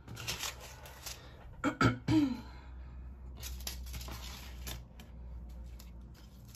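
Plastic sorting trays of diamond-painting drills being handled and set down on a wooden table, with rattling and rustling near the start and again for about a second and a half in the middle. A brief cough-like vocal sound comes about two seconds in.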